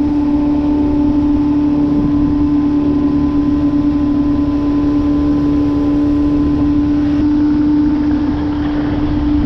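Boat motor on a 16-foot Bass Tracker running at a steady speed, giving a constant hum over a low rumble.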